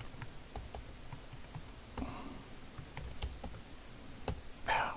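Typing on a computer keyboard: irregular runs of key clicks as a command and a login are entered. A short, louder sound comes just before the end.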